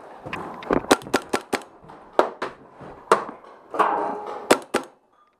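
Milsig M-series mag-fed paintball marker firing about a dozen sharp pops in quick, irregular groups.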